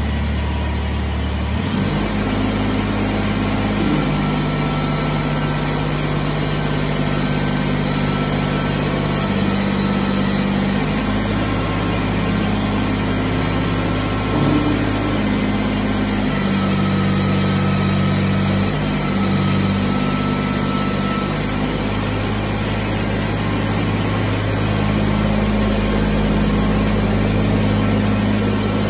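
Kubota BX23S sub-compact tractor's three-cylinder diesel running steadily, its note shifting now and then as the front loader is worked.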